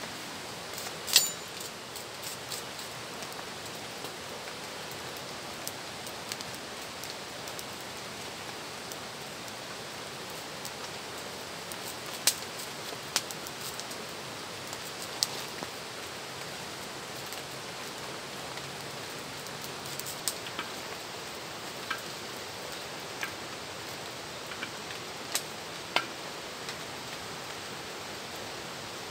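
Scattered sharp clicks and taps, about a dozen, as a knife peels and cuts cassava over a steel bowl. They sit over a steady hiss of background noise.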